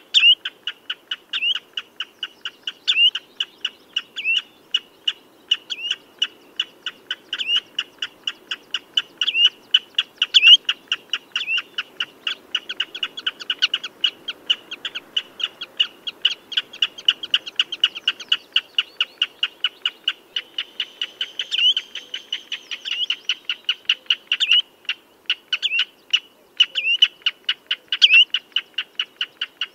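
Common redshank calling: a fast, steady string of short sharp piping notes, about four a second, with louder slurred notes every second or so.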